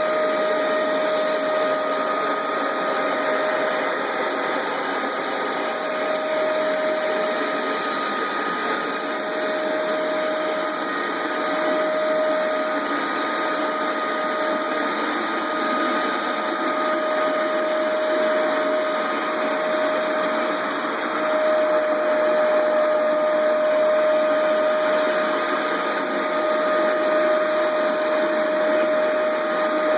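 Hoover Max Extract 77 carpet deep cleaner running continuously on carpet, its suction motor giving a steady whine over a rushing noise.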